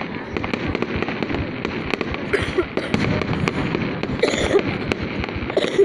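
Fireworks going off: a dense run of sharp pops and crackles over a continuous rumble.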